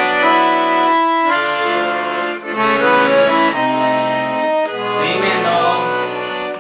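Piano accordion (sanfona) playing held chords on its left-hand bass and chord buttons, changing chord about once a second, as part of the song's bass accompaniment.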